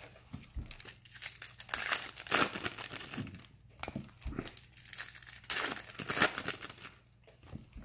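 Trading-card pack wrappers crinkling in irregular bursts of wrapper noise as packs are opened.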